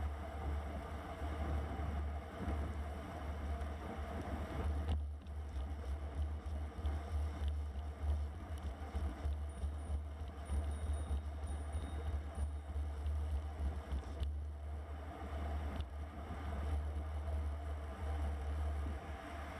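Steady wind rumble on a bike-mounted action camera's microphone while riding a road bike at about 22 mph in the rain, with the hiss of tyres on a wet road.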